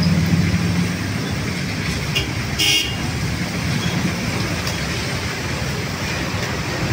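Road traffic running steadily with a continuous low engine rumble, and one short vehicle horn toot about two and a half seconds in.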